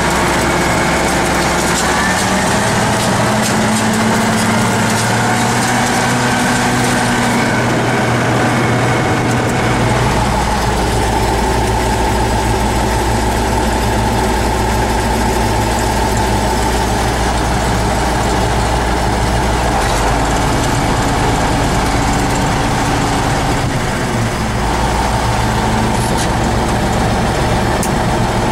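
T-150K tractor's diesel engine running steadily, heard from inside the cab, with its low drone changing about ten seconds in.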